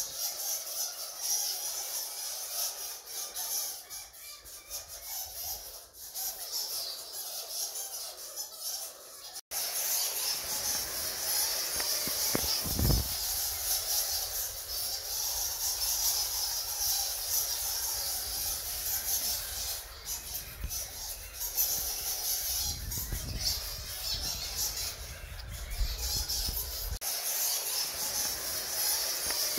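A colony of bats squeaking: a dense, high-pitched chatter of many overlapping squeaks that runs on throughout. It breaks off for an instant about a third of the way in, and a few low bumps come later.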